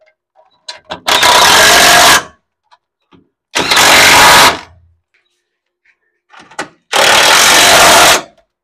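Cordless impact driver hammering crossmember bolts tight on a Jeep CJ-5, three bursts of about a second each with pauses between.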